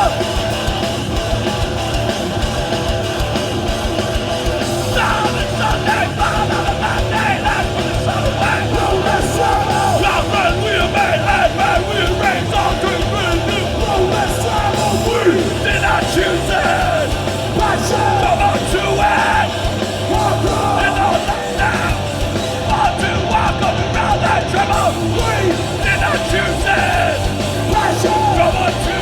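Hardcore punk band playing a song live at full volume, with yelled vocals over the band.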